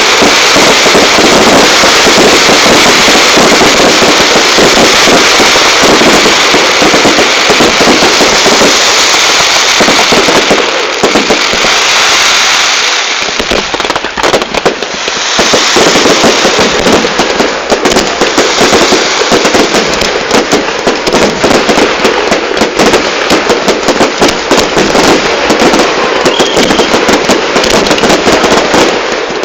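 A dense, continuous barrage of fireworks, loud bangs and crackles packed closely together, easing briefly about halfway through before building up again.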